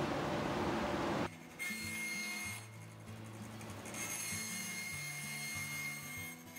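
Bandsaw cutting plywood, a steady rushing noise that cuts off abruptly about a second in. After that, soft background music of slow, held low notes.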